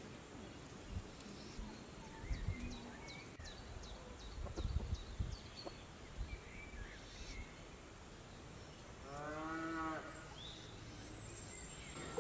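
A cow mooing once near the end, a single call of about a second that rises then falls in pitch. Small birds chirp faintly, and a few low thumps come in the first half.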